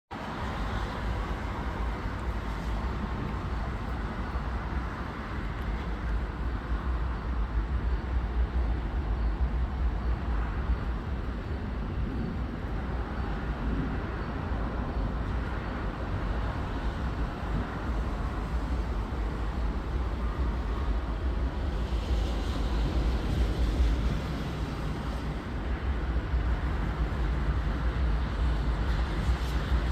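Steady outdoor city noise with a deep low rumble throughout, swelling slightly now and then.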